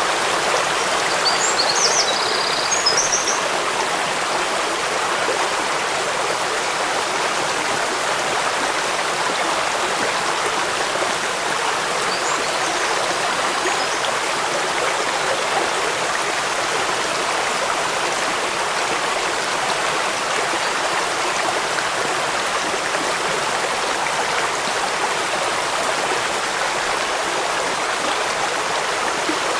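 Waterfall rushing steadily: a continuous, even hiss of falling water with little bass. A few brief high chirps come through about two seconds in, and faintly again around twelve seconds.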